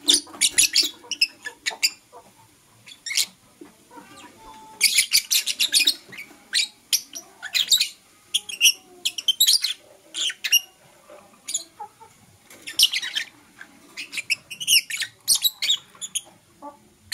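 Lovebirds chirping: clusters of short, sharp, high-pitched chirps in quick succession, with brief pauses between the bursts.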